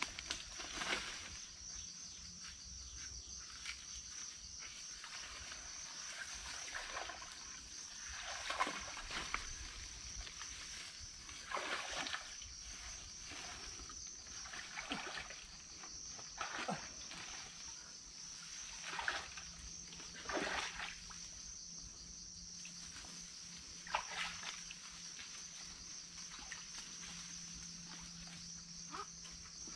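Steady high-pitched insect chorus, with brief rustles and cracks of vegetation several times, the loudest about a third and two thirds of the way in.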